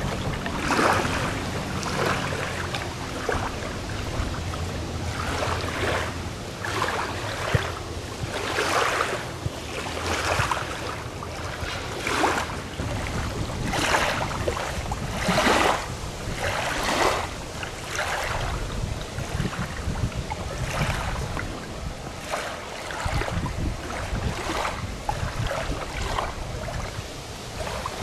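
Water washing and lapping in repeated surges about every second or so. For the first several seconds a distant jet ski engine drones low beneath it, then fades.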